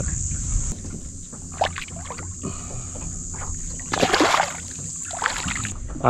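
Water sloshing around a small fishing boat, with one splash about four seconds in. A steady high insect drone stops early on and comes back near the end.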